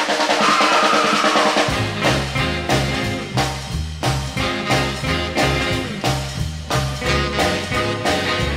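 Recorded rockabilly band music in a swinging beat: drums at first, with a walking bass line coming in about two seconds in, and other instruments over it.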